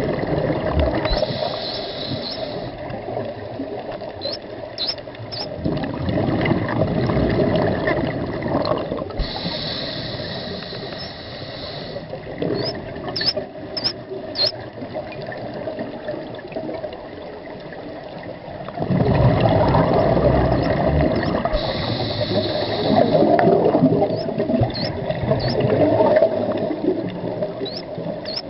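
Underwater water noise: muffled sloshing and bubbling of water around the camera, which grows louder about two-thirds of the way in, with a few brief high squeaks around the middle.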